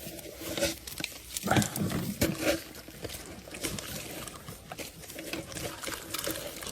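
Water splashing and dripping as a fishing net is hauled up out of the river, with scattered knocks and rustles from the wet net.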